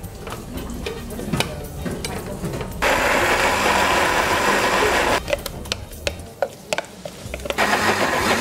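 Countertop blender puréeing cooked black glutinous rice porridge, run in two bursts: one of about two and a half seconds, then another starting near the end. Before it, a spoon clinks and scrapes as the rice is ladled from a steel pot into the blender jug.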